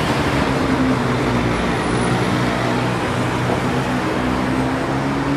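Steady road-traffic noise with a motor vehicle's engine running, a low hum whose pitch drifts slowly.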